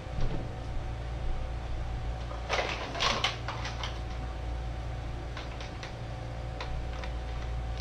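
Someone rummaging out of view: scattered knocks and clicks, with a short rustling burst about two and a half to three and a half seconds in, over a steady low room hum.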